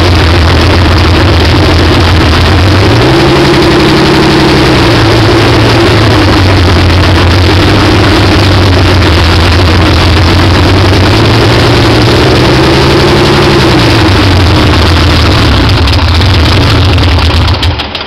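Porsche 4.0-litre big-bore air-cooled flat-six with individual throttle bodies, running loud and steady on an engine stand during fuel and ignition tuning. It is raised to a higher speed twice, each time held a second or two and then let back down to its steady speed, and the sound cuts off near the end.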